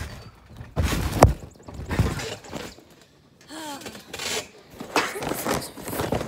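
A handful of irregular thumps and knocks, roughly a second apart, with a short vocal sound about midway.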